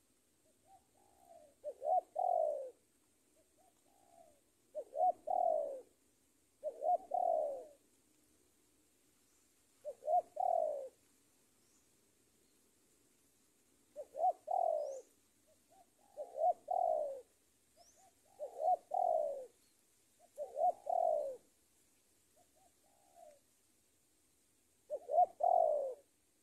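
Spotted dove (tekukur) cooing: a decoy bird's challenge call to draw a rival male. It repeats a phrase of about a second every two to four seconds, with fainter short coos between.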